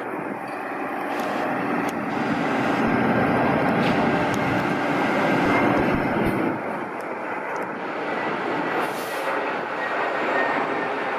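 A fire truck's heavy diesel engine and tyres passing close, building to a peak about halfway through, then easing off.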